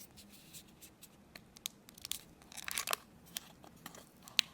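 A wrapper being torn and crinkled open by hand, with scattered small clicks and a denser burst of crinkling about two and a half seconds in, then one sharp click near the end.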